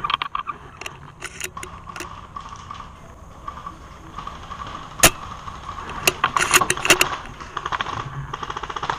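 Airsoft gun shots and handling clicks: scattered sharp snaps, a single loud crack about five seconds in, and a quick run of clicks about six to seven seconds in, over a faint steady whine.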